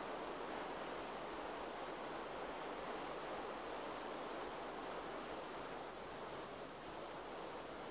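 Steady, even rushing noise with no distinct events standing out.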